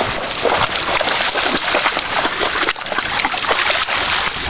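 Dogs splashing and thrashing through shallow lake water, an irregular run of sloshes and splashes.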